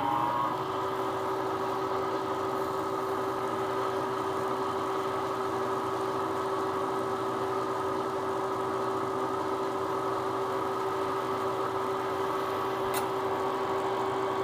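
Knee mill's spindle motor running at a steady speed with an even whine, settling to full speed in the first moment; a faint click near the end.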